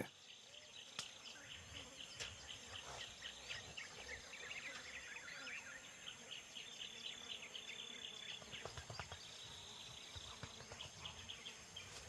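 Faint tropical forest ambience: a steady high-pitched insect drone, with many short chirps and clicks from insects and birds. A couple of held high whistles come a little past the middle.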